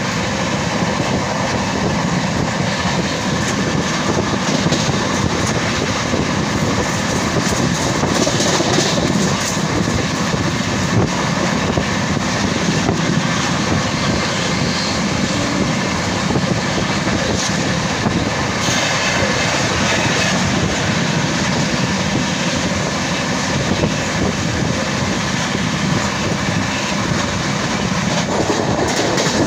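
Sampoorna Kranti Express passenger train running at speed: a steady, loud rumble of wheels on rail, with clatter over the rail joints.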